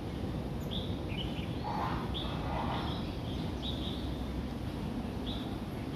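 A series of short, high chirps, about one or two a second, over a steady low background rumble.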